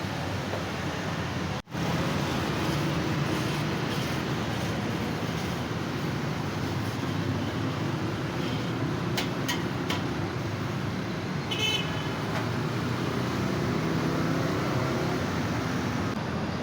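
Steady roadside traffic noise, with a vehicle horn sounding briefly about twelve seconds in and a few sharp clicks a couple of seconds before it.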